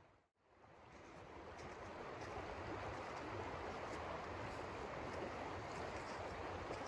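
Shallow stream running over stones, a steady rush of water. It dips to near silence just after the start and fades back in over the next two seconds.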